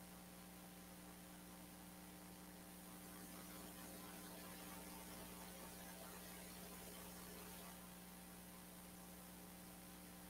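Near silence with a faint, steady electrical hum in the audio line.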